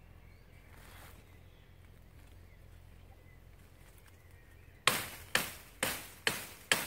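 Folding military shovel tool chopping into a woody stem: after a quiet stretch of faint woodland background, sharp strikes begin about five seconds in and repeat about twice a second, each with a short fading tail.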